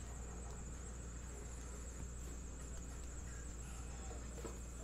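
Low background noise: a steady low hum and a steady high-pitched whine, with a few faint ticks as trading cards are handled.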